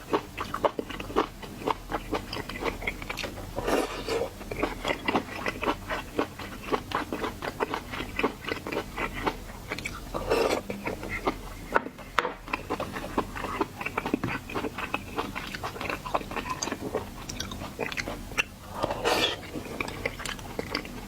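Close-miked mukbang eating of seafood: continuous chewing and biting with crackly, crunchy clicks, and a few louder bites along the way.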